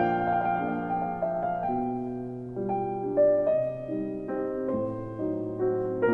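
Background piano music: a slow, gentle melody over held chords.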